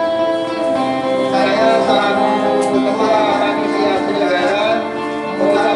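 Music playing steadily, with sustained melodic tones.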